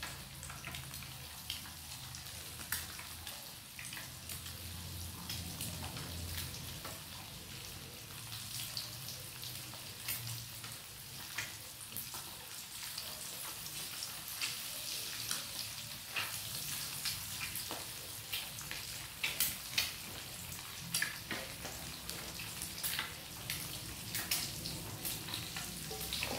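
Boiled quail eggs frying in a pan: a steady sizzle with scattered sharp pops and crackles, as the eggs brown.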